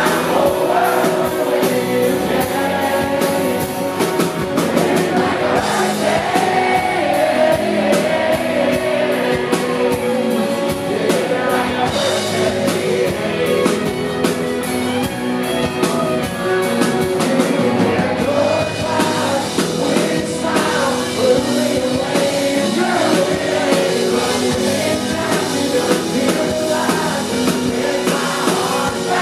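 A country band playing live: drums, electric bass and guitars, with singing.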